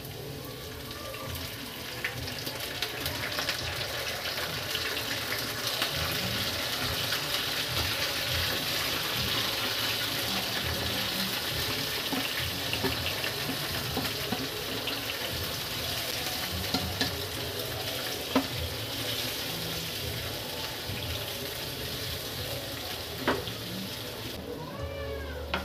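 Marinated chicken pieces sizzling in a hot oiled frying pan as they are tipped in from a plate and stirred with a wooden spatula. The sizzle builds over the first few seconds and then runs steadily, with a few sharp clicks of the spatula against the pan.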